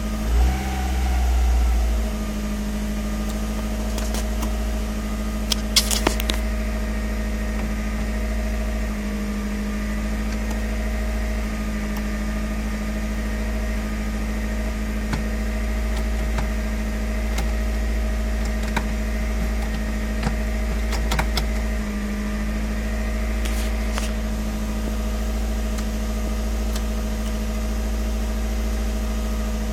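Mazda B6T 1.6-litre turbocharged DOHC four-cylinder in a Ford Laser TX3 idling fast and steadily at about 2,000 rpm, on a cold start after about eight months unused. There is a short swell in the engine sound just after the start, and a few sharp clicks around six seconds in and again later.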